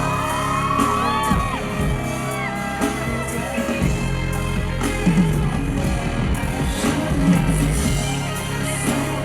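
Live pop song played loud through a concert PA: band with a steady bass and beat, a sung vocal line gliding through a held chorus note in the first couple of seconds.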